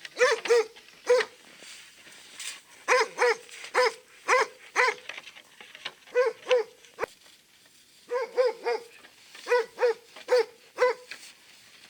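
Hunting dog barking at a brown bear holed up in its den, baying it: short, sharp barks in quick runs of two to five, with brief pauses between the runs.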